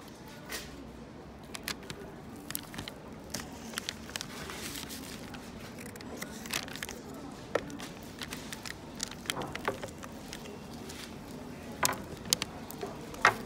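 Plastic fork cutting into soft French toast in a pleated paper cup, with crinkling of the paper and irregular sharp clicks and scrapes, the two loudest near the end.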